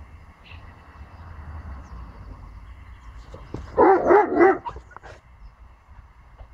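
A dog barking three times in quick succession, with a wavering pitch, a little past the middle.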